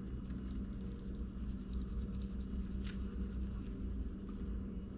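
Powdered egg cure shaken from its container and sprinkled over a tray of salmon eggs: a soft patter of granules with scattered light ticks, over a steady low hum.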